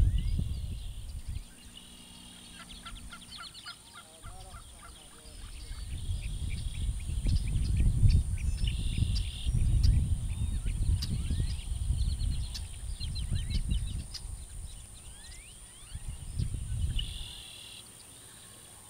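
Outdoor field ambience: small birds chirping and trilling throughout, over a steady high hiss. A low rumble swells and fades through the middle and is the loudest sound.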